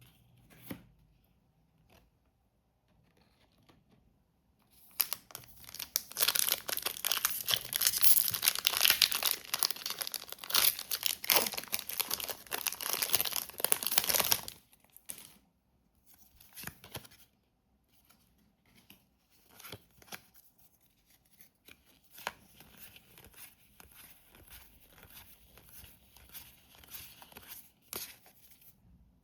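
Packaging being torn open and crinkled: a long stretch of loud tearing and crinkling from about five seconds in until about fourteen seconds, then quieter rustling and crinkling with small clicks.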